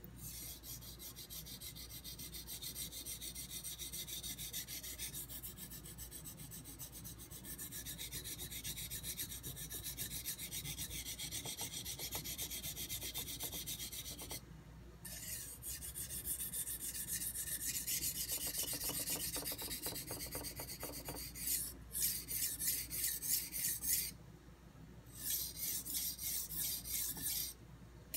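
Steel knife blade stroked back and forth on a wet Nubatama Ume extra-hard 1000 grit whetstone, a steady gritty scraping. There are two short pauses, and the strokes turn louder and more separate, about three a second, in the last few seconds.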